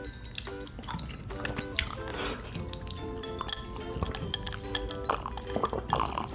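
Background music with ice cubes clinking against a glass as it is picked up and tipped to drink. There are many small sharp clinks, more of them near the end.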